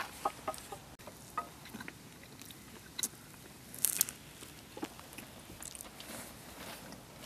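People eating breakfast: scattered clinks, scrapes and crunching of eating, with a louder short clatter about four seconds in.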